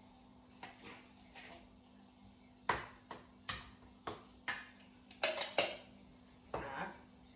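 A metal spoon scraping soft canned dog food out of a tin can and knocking against a stainless steel bowl: a dozen or so irregular short clinks and scrapes, over a faint steady hum.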